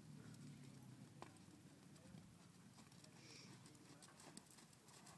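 Faint, soft hoofbeats of a paint horse trotting on arena sand, barely above near silence.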